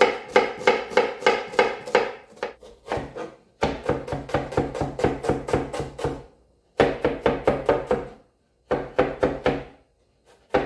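Knife rapidly chopping onion on a cutting board, about six quick knocks a second, in several runs broken by short pauses.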